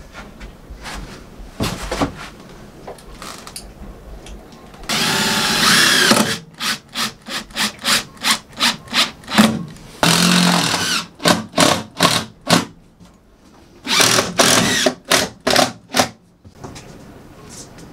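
Cordless drill boring into a plywood subfloor panel laid over steel framing, in three spells. Each spell is a steady run of about a second followed by a string of short trigger bursts, two or three a second.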